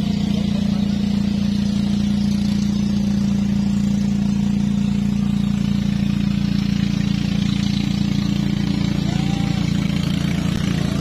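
An engine running steadily at an unchanging speed, its pitch holding level throughout.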